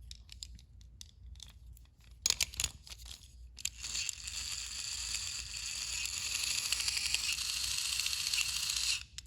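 A few clicks and taps of the toy being handled, then from about four seconds in the small electric motor and gears of a battery-powered toy Thomas engine run with a steady whir, slowly getting louder as it starts off a little slow, and it stops just before the end.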